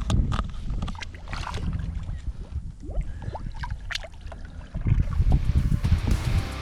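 Water splashing and dripping beside a boat as a musky is put back in the lake, with low rumbling from wind on the microphone and a louder stretch of splashing near the end.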